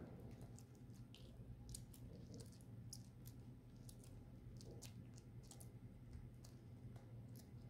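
Small dog gnawing a yellow dog chew stick: faint, irregular clicks of teeth biting on the chew, over a low steady hum.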